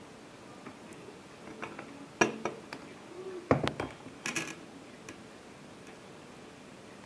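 Crockery being handled: a run of light clicks and knocks, several with a brief ringing clink. The loudest knock comes about two seconds in, followed by a cluster of clinks a little later.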